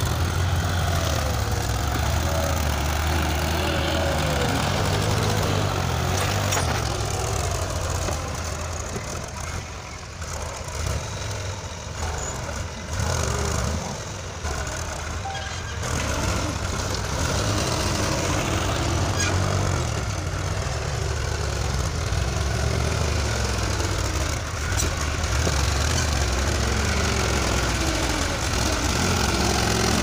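Farm tractor diesel engines running hard under heavy load, pulling a land-levelling scraper through loose sand. The steady low engine hum drops for a few seconds near the middle, then comes back.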